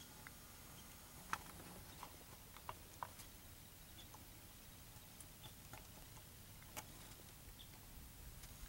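Near silence, broken by scattered faint, sharp clicks, the sharpest about a second and a half in.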